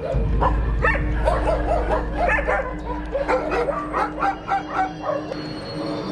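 Several shelter dogs in a kennel barking and yelping, many short calls in quick succession that die away about five seconds in, over a steady low rumble.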